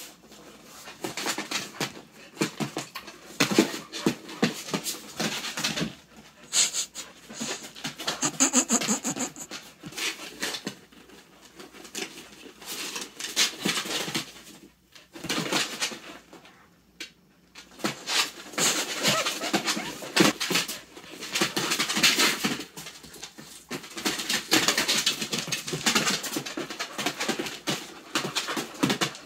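A pit bull and a Plott hound play-wrestling: scuffling paws, clicking claws and panting, in irregular bursts with a short lull about halfway through.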